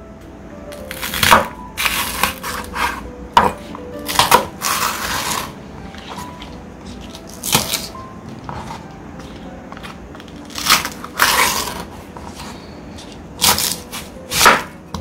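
Knife cutting food on a cutting board in irregular strokes with pauses, some quick knocks and a couple of short scraping sounds, over faint background music.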